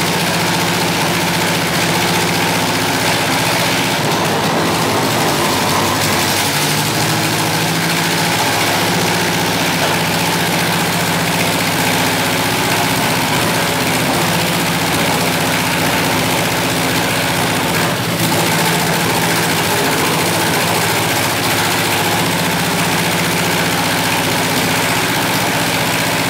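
Lycoming IO-360 four-cylinder horizontally opposed, fuel-injected aircraft engine running steadily on a dynamometer test rig, loud through short open exhaust stacks. Its pitch dips briefly about five seconds in, then comes back up.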